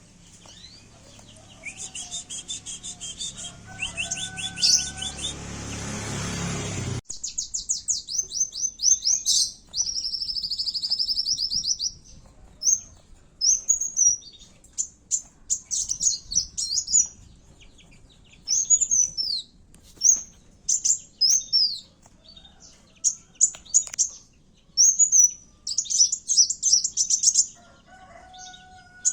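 Kowul sunbird giving rapid, high-pitched chirps and fast trills, its aggressive fighting call as used for bird luring. A background hiss cuts off suddenly about seven seconds in; then come dense trills followed by separate sharp chirps.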